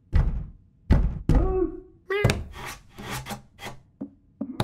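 Animated cat's paws thumping and scratching at a wooden door: sharp knocks near the start and about a second in, then a quick run of rasping scratch strokes, and another knock near the end. Short strained meows come between the blows.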